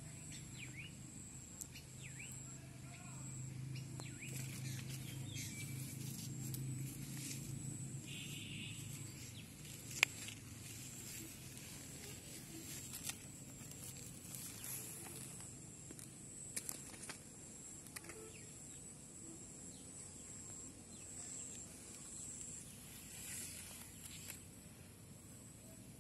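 Faint outdoor ambience: a low rumble through the first several seconds, a steady high thin whine, a few short bird chirps, and scattered small clicks and rustles, with one sharp click about ten seconds in.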